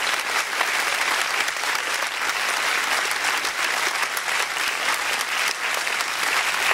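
Large crowd of about a thousand people applauding steadily, a dense patter of many hands clapping.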